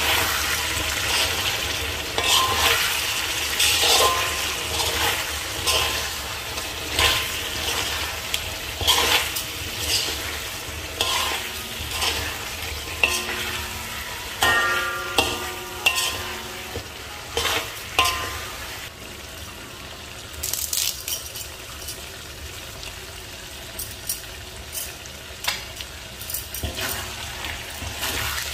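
Wooden spatula stirring and turning mutton pieces frying in a thick ghee-masala in a metal wok, with sizzling and frequent knocks and scrapes against the pan. A short ringing note sounds about halfway through.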